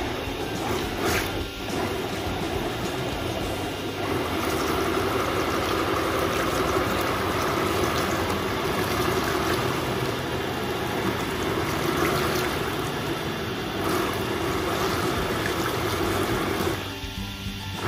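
Electric RC buggy running while sitting in a tub of water, its spinning wheels churning and splashing the water. The churning builds over the first few seconds, dips briefly about 14 s in and dies away near the end.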